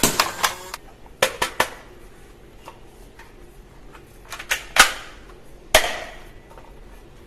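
Plastic toy guns being handled, giving a few short groups of sharp clicks and clacks with quiet gaps between; one knock near the end rings on briefly.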